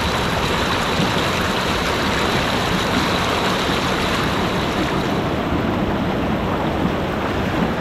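River water rushing and splashing over rocks in a rapid, close to the microphone at water level: a steady roar of white water.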